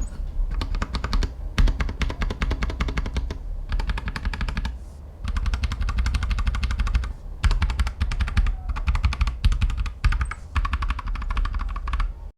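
Fast typing on a Royal Kludge RK84 mechanical keyboard: dense runs of rapid key clicks and clacks, broken by a few short pauses.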